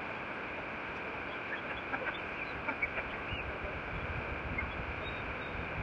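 Steady rush of a rocky mountain river below a suspension bridge, with scattered short, high-pitched chirps over it.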